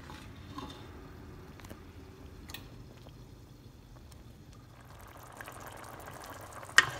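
Wooden spoon stirring thickened béchamel sauce in a metal saucepan: a low, quiet wet stirring with a few faint clicks of the spoon against the pot, and one sharp knock near the end.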